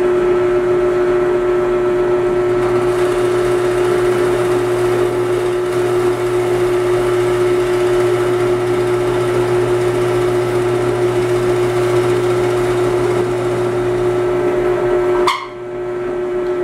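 Drill press running with a steady hum while a 1¼-inch bit bores a countersink hole into soft maple. The sound drops near the end, then cuts off.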